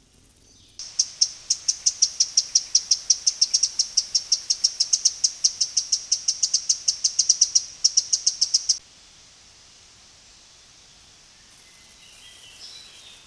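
A fast, even series of high-pitched chirps, about five a second, from a small wild animal. It starts and cuts off abruptly and lasts about eight seconds, followed by faint outdoor hiss.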